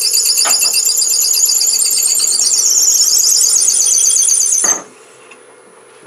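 A long twist drill bit in a tailstock Jacobs chuck is boring into a spinning wood pen blank on the lathe, giving a loud, high-pitched, rapidly warbling squeal. The squeal cuts off abruptly near the end as the bit reaches its marked depth, leaving the lathe's low steady hum.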